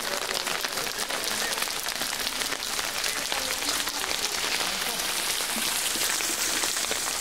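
Steady rain falling: a constant hiss with a dense patter of close drop ticks.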